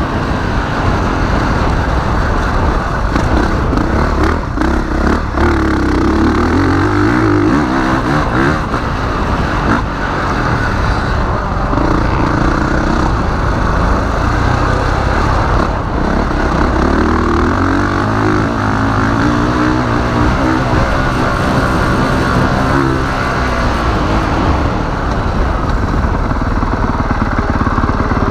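2021 Honda CRF450R's single-cylinder four-stroke engine under load on a motocross lap, its pitch rising and falling over and over as the rider accelerates through the gears and backs off for corners.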